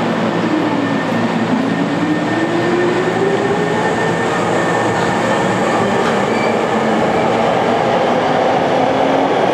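Hankyu electric train running at the platform: steady rail and running noise under a long, slowly rising motor whine.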